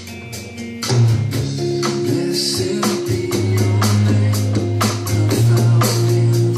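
Drum-kit music: an electronic drum kit played along with a song over speakers, with a steady run of cymbal and drum hits over sustained bass and instrument notes. About a second in the music fills out and grows louder with a strong bass line.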